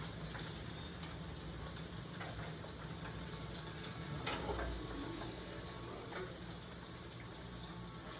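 Battered squid rings (calamares) sizzling steadily as they fry in hot oil, with a light knock about four seconds in.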